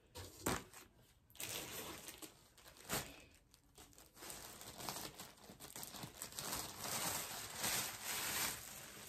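Thin plastic clothing bag crinkling and rustling as a garment is unwrapped from it. A few sharp crackles come in the first three seconds, then denser handling noise from about four seconds in.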